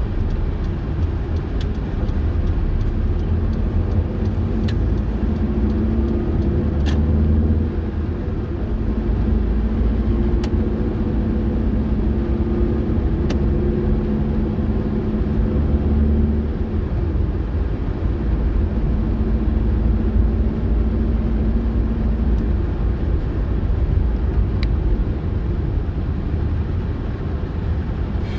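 A car running along a road: a steady low rumble with an engine hum that shifts in pitch as the speed changes, and a few faint clicks.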